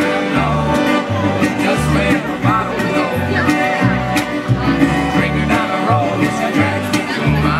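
Acoustic string band playing a bluegrass-style song live: a resonator guitar picked over a bass line that steps to a new note about every half second, with a voice singing the melody.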